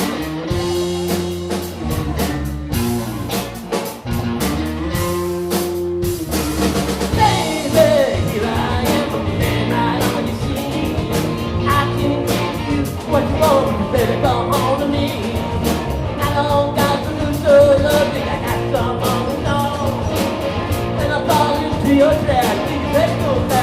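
Live rock band playing an instrumental stretch between verses: bass and guitar repeat a low riff over the drums, and about six seconds in the music fills out with a wavering lead guitar line.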